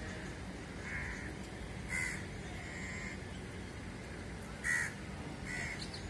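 Crows cawing: about five short caws, the loudest about two seconds in and near five seconds, over a steady low background rumble.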